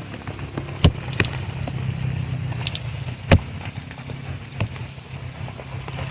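Campfire of fat wood and wet wood crackling, with a few sharp pops, the loudest about three seconds in, over a steady low hum.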